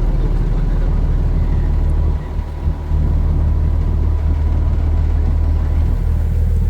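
Engine running steadily with a low drone, briefly dipping a little over two seconds in.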